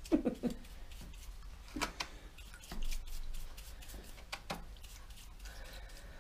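Faint, scattered light clicks and taps of small tools and carburettor parts being handled, a handful spread over several quiet seconds.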